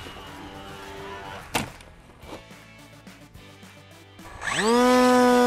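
Quiet background music with one sharp click about a second and a half in; near the end a foam-board RC plane's electric motor and propeller spin up with a quickly rising whine that settles into a steady, loud whine.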